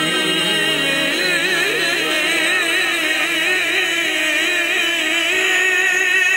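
A man's voice reciting a naat in Punjabi, singing long drawn-out notes with a wide, wavering vibrato into a microphone.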